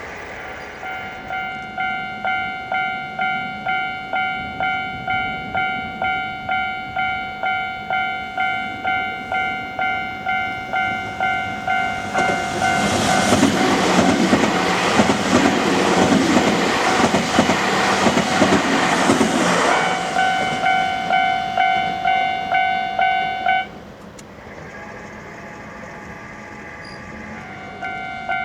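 Japanese level-crossing alarm ringing its repeated electronic dings, a bit under two a second. A train on the Nankai Koya Line rumbles through from about halfway in for roughly eight seconds, wheels clattering over the rails. The alarm cuts off suddenly a few seconds after the train has gone, then starts ringing again near the end as the crossing is triggered once more.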